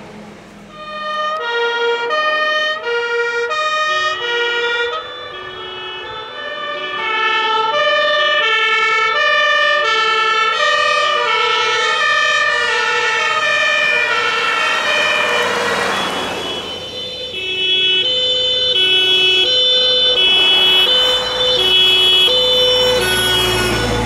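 Several German two-tone emergency sirens (Martinshorn) on a fire brigade convoy wail at once, each alternating between its two pitches and running out of step with the others. About two-thirds of the way through, a vehicle passes close with a rush of engine and tyre noise, and a deeper engine rumble builds near the end.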